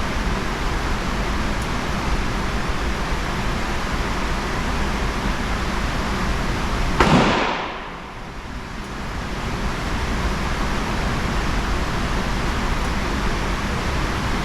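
Single gunshot from a .22 single-action revolver about seven seconds in, a sharp crack, with a second shot right at the end. A steady background hiss runs under it.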